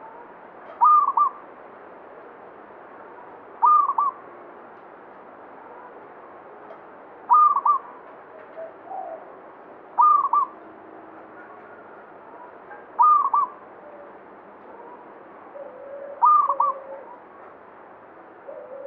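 Zebra dove (perkutut) singing: a short phrase of quick cooing notes repeated six times, about once every three seconds, with a few softer, lower coos between phrases.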